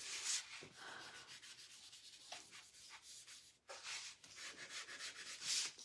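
Brush scrubbing wax onto a painted frame: a quick run of short, scratchy strokes, with a brief pause about three and a half seconds in.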